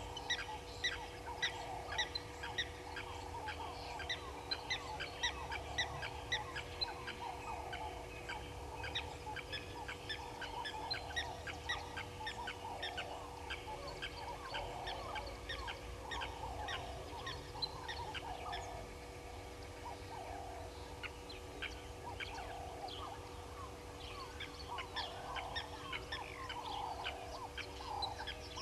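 Wild birds calling together: a dense run of quick high chirps with repeated lower falling calls throughout, over a steady low hum.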